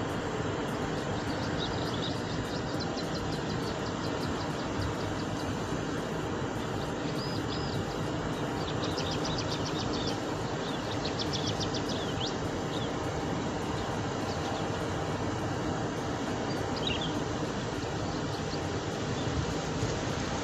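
Steady rushing outdoor background noise with a small bird calling over it, mostly in quick trilled chirps in several short bursts, and one downward call later on.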